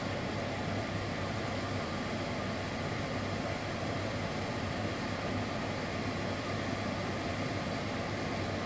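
Extractor fan running steadily: an even rush of air with a constant low hum.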